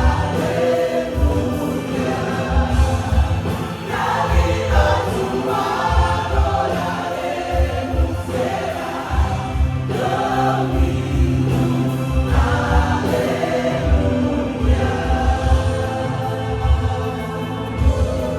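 Contemporary Christian worship song performed live: voices singing over a band, with a steady drum beat and sustained keyboard and bass.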